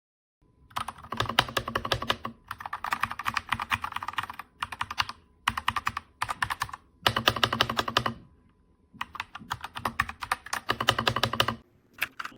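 Fast typing on an RK Royal Kludge RK61 mechanical keyboard: rapid runs of key clicks in bursts of one to two seconds, with short pauses between them.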